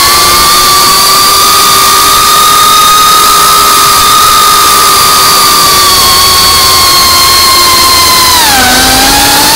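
FPV quadcopter's brushless motors and propellers whining steadily over a rushing hiss, picked up by a camera on the drone itself. About eight and a half seconds in the pitch drops sharply, as when the throttle is chopped, then climbs back up.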